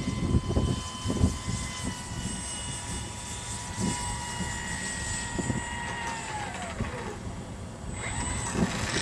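Electric motor and propeller of a radio-controlled gyrocopter whining at a steady pitch, then winding down and fading about six to seven seconds in as it is throttled back for landing. Low rumbling gusts in the first couple of seconds.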